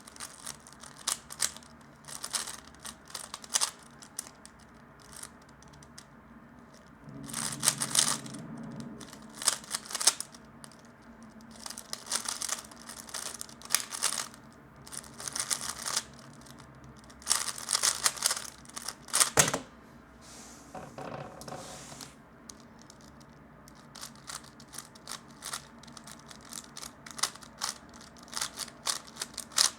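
A 3x3 speed cube being turned fast by hand: bursts of rapid plastic clicking, each lasting a second or two, with short pauses between them and a longer lull about two-thirds of the way through.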